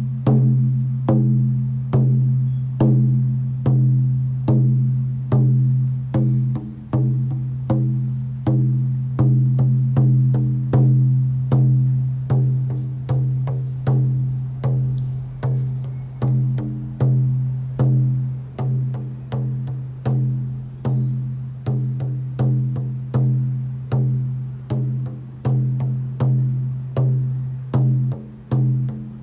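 Medicine drum, a frame drum, beaten in a steady, even rhythm a little faster than one stroke a second. Each stroke gives a deep, booming tone that rings on into the next.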